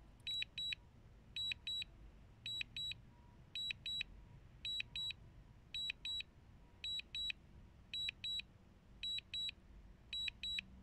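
DJI Mini 2 return-to-home warning beeping: short high-pitched beeps in pairs, repeating steadily about once a second, signalling that the drone is flying home on automatic return.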